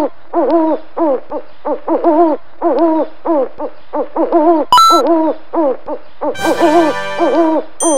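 Owl hooting over and over in short arched hoots, about two a second. A sharp click comes about five seconds in, and a bright jingling chime with a ding near the end.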